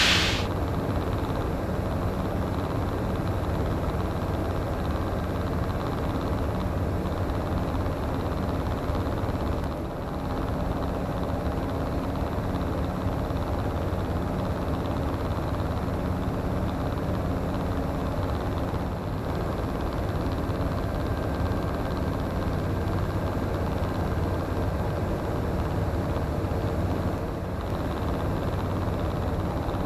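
Comco Ikarus C42C microlight's engine and propeller droning steadily in flight, heard inside the cockpit, with slight dips in level about ten seconds in and near the end.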